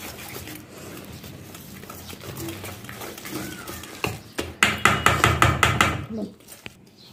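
Wire whisk beating a thick batter in a stainless steel bowl. It is quiet at first, then about four and a half seconds in comes a quick run of rapid clicking, several strokes a second for about a second and a half, as the whisk strikes the metal bowl.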